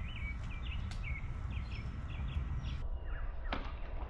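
Birds chirping in short repeated calls, a few a second, over a low steady rumble.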